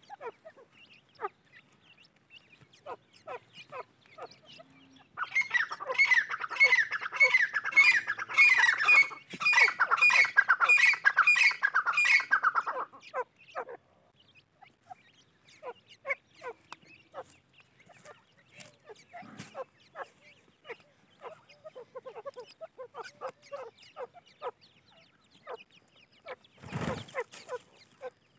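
Grey francolins calling: soft, scattered chick peeps throughout, and about five seconds in a loud, rapid run of repeated squawking calls that lasts about eight seconds. A short rustling thump comes near the end.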